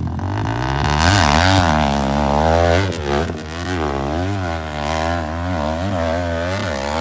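Four-stroke hillclimb motorcycle launching from the start gate and climbing a steep dirt hill: the engine revs up hard about a second in, then its pitch rises and falls over and over as the throttle is worked on the climb.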